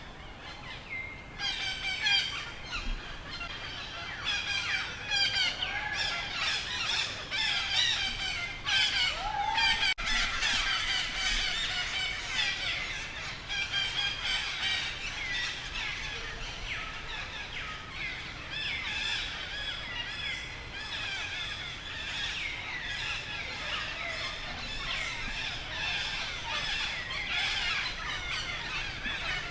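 Dense chorus of high-pitched animal calls: many overlapping short chirps and squeals, busiest in the first half, with one lower rising call about nine seconds in.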